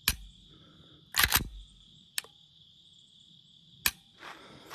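Sharp metallic clicks of a Gen 3 Glock 19's trigger being dry-fired and reset by hand: one at the start, a louder double click about a second in, then single clicks around two seconds and near four seconds. Crickets chirr steadily underneath.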